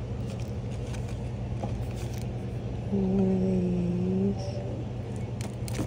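Steady low hum of the shop's background, with a single held low tone about three seconds in that lasts over a second and dips slightly in pitch, and a few light clicks near the end.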